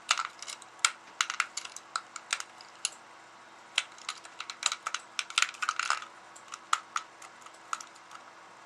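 Irregular small clicks and taps of a screwdriver working a long screw into a plastic airsoft pistol body, with the tool and parts knocking together as the screw is tightened down.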